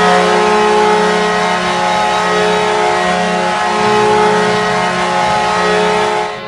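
The Minnesota Wild's hockey goal horn sounding one long, loud, steady blast of several held tones at once, dropping away about six seconds in.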